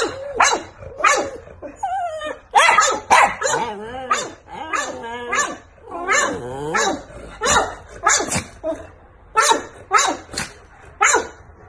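A boxer dog barking over and over, roughly two sharp barks a second, with wavering, drawn-out whining calls between the barks in the middle stretch.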